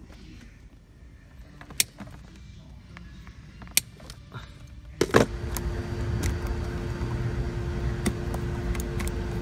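Two sharp clicks about two seconds apart from a hand crimping tool closing on wire connectors. About five seconds in there is a loud knock, and then a steady low rumble with a constant hum sets in.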